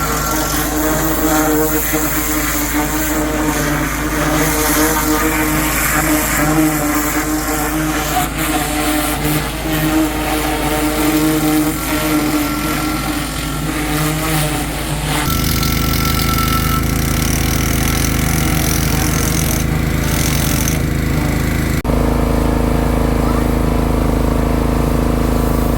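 An engine running steadily at a constant speed. The sound shifts abruptly about fifteen seconds in and again about twenty-two seconds in.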